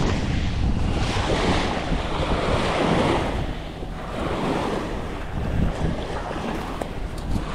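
Small waves breaking and washing up a pebble beach, swelling and ebbing every second or two, with wind buffeting the microphone as a steady low rumble.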